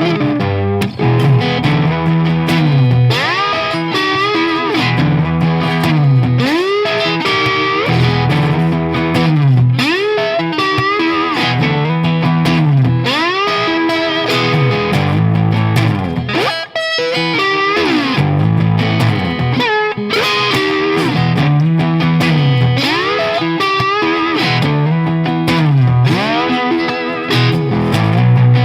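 Background rock music with distorted electric guitar playing bending riffs over a repeating bass line.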